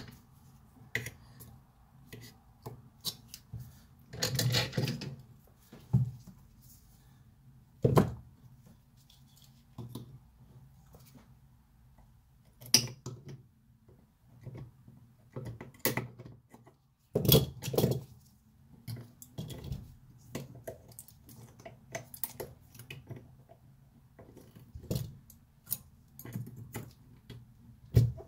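Pliers clicking and scraping on the thin welded aluminium seal of a Seagate Barracuda Pro helium hard drive as the seal is peeled off the cover: irregular metallic clicks and clinks, with two longer scraping, crinkling stretches about four seconds in and again past the middle.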